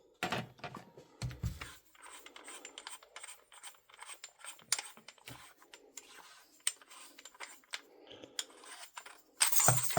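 Light metal scraping and scattered small clicks of rifle parts being worked by hand as the barrel nut of an airsoft gas-blowback rifle is unscrewed with an armorer's wrench, with a louder metallic clatter near the end.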